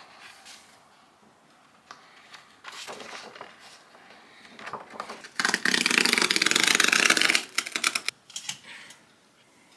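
Paper rustling as the pages of a poster book are handled, then a loud ripping for about two seconds midway as a poster is torn out.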